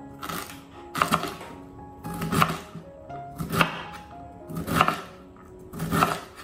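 Chef's knife cutting through celery and then cabbage onto a bamboo cutting board, one crisp cut about every second. Light background music plays underneath.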